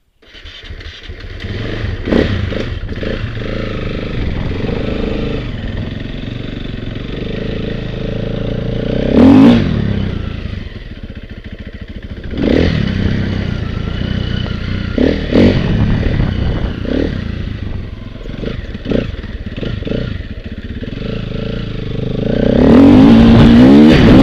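A small vehicle engine running and revving up and down, with clattering knocks along the way; it revs up hard and loud near the end.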